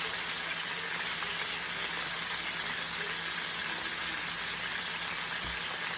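Bacon-wrapped filet mignon steaks searing in a hot pan, sizzling steadily.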